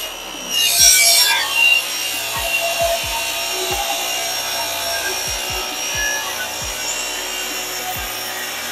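Table saw running and ripping an angled cut along a wooden board, the blade tilted to a bevel: a steady, loud cutting noise, brightest and loudest about a second in, as the board is pushed through.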